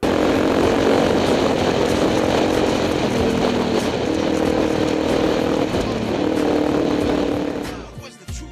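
Trail motorcycle engine running at riding speed, recorded onboard over a loud rush of wind and road noise. The engine note steps up and down in pitch a few times, and the sound cuts off suddenly about eight seconds in.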